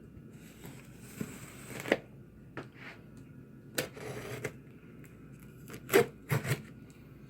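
Utility knife slitting packing tape and cardboard on a large shipping box, with short scraping rustles and several sharp knocks of the cardboard being handled, the loudest about two seconds in and around six seconds in.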